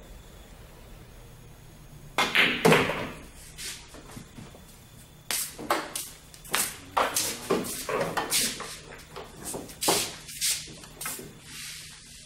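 Billiard balls: about two seconds in, a shot, with sharp clacks from the cue striking the cue ball and balls colliding. From about five seconds in comes a long run of separate hard clacks and knocks as the balls are handled, pulled from the pockets and gathered for the next rack.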